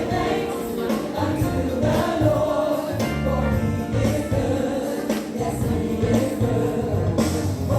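Gospel music with a choir singing over a moving bass line.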